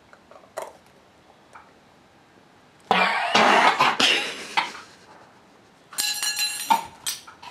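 Harsh coughing and sputtering from people choking on a mouthful of dry ground cinnamon: about three seconds of quiet, then a loud coughing fit, and a shorter, strained, higher-pitched gagging cough about six seconds in.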